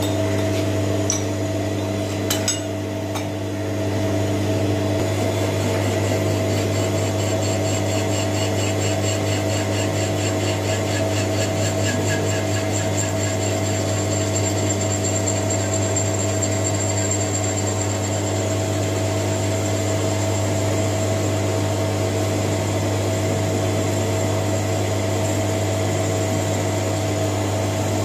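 Metal lathe running with a steady motor hum while turning a metal bar. A couple of metallic clicks come in the first few seconds, then from about five seconds in the cutting tool bites and a high, pulsing ring of the cut rides over the hum as chips curl off the bar.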